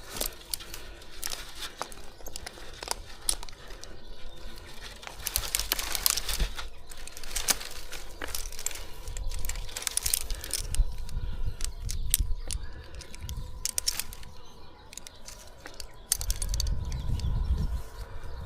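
Rustling and crackling of Scots pine branches and needles, with scattered sharp clicks and knocks, as a climber moves through the canopy. A low rumble joins in about sixteen seconds in.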